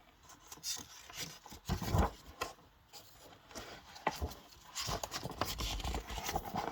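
Irregular rubbing, scraping and soft knocks of objects being handled, with a louder scrape about two seconds in and a busier stretch of rubbing from about five seconds in.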